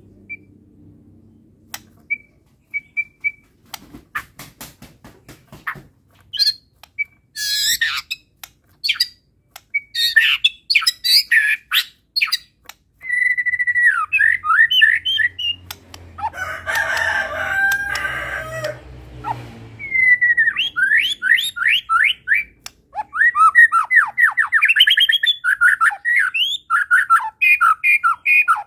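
White-rumped shama (murai batu) singing a long, varied song: sharp clicks at first, then whistled phrases and fast rattling trills, with a harsher, lower chattering passage midway.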